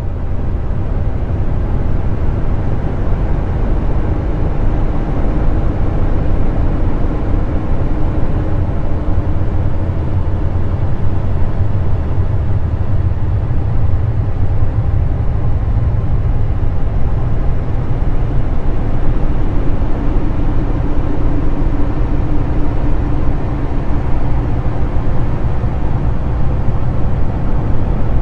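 Steady, deep rumbling drone with a faint hum running through it: a 'sound of space' track, planetary data rendered as audio.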